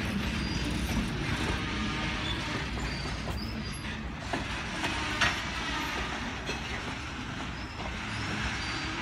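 Freight train of open-top hopper cars rolling past: a steady noise of wheels on rail, with a few faint high wheel squeals and one sharp clank about five seconds in.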